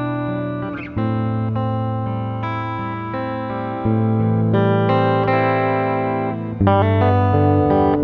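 Acoustic guitar music played through a looper: layered plucked notes ringing over sustained low notes, the chord changing about every two to three seconds.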